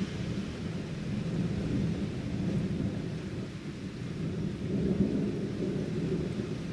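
Rain falling during a thunderstorm under a low rumble of thunder that rises and falls, loudest about five seconds in.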